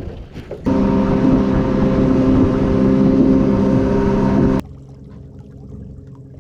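A boat motor running steadily with an even hum for about four seconds, switching on and off abruptly.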